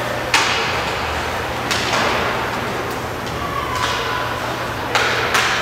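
Hockey sticks and puck cracking against each other, the ice and the boards, five sharp echoing hits, the loudest about a third of a second in and two close together near the end, over a steady low hum.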